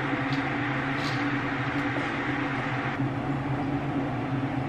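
A steady mechanical hum with a low drone, running evenly throughout, with a couple of faint small clicks in the first second or so as small items are handled.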